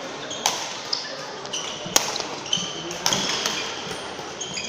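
Badminton rally in an echoing sports hall: three sharp racket hits on the shuttlecock, about a second apart, with short high squeaks of shoes on the court floor between them.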